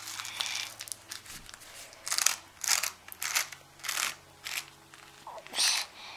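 Paper cupcake case crinkling and crunching in a run of short bursts, roughly two a second after the first couple of seconds, as a plastic fluted crimping tool is pressed down onto soft dough inside it.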